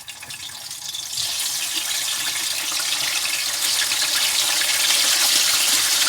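Chicken pieces dropped into hot oil in a frying pan, sizzling and crackling; the sizzle swells about a second in and keeps growing louder.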